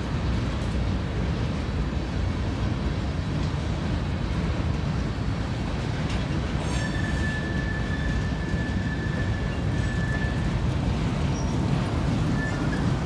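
CSX freight train's covered hopper cars rolling slowly past with a steady low rumble. About halfway through, a wheel gives one high, steady squeal lasting about three seconds.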